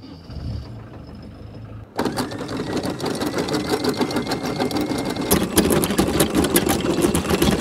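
A Volvo Penta inboard engine runs with a low rumble. About two seconds in, an electric anchor windlass starts hauling in the anchor chain: the links rattle over the gypsy and bow roller in a fast, continuous clatter, with a steady motor whine for the first few seconds of the haul.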